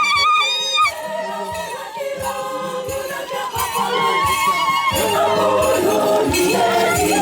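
Church choir singing over a steady low beat; a held high note breaks off about a second in, and the singing fills out with more voices from about four seconds in.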